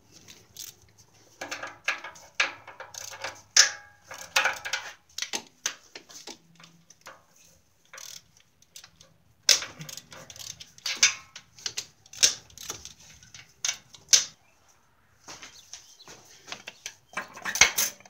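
Socket ratchet clicking in quick runs, with metal tools knocking and clinking, while the bracket bolts on the exhaust manifold are worked loose. The clicks come in clusters with short pauses between.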